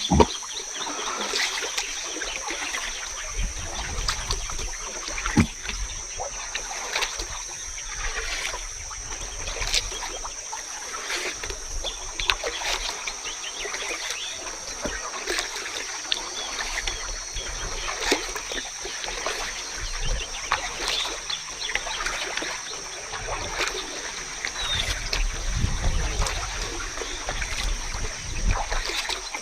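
Water splashing and dripping around a kayak on a river, with many small irregular drips and splashes. A steady high-pitched whine runs underneath, and twice there is a low rumble.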